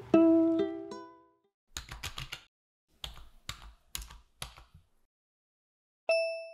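Computer-keyboard typing sound effect: several quick runs of clicks, while the last plucked ukulele chord of the intro music dies away at the start. About six seconds in comes a single bright bell-like ding that rings out and fades.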